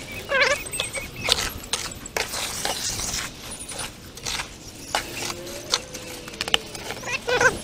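Hoe scraping and chopping through wet, gravelly concrete mix in a plastic wheelbarrow tub, in irregular strokes. There is a short pitched sound about half a second in and again near the end.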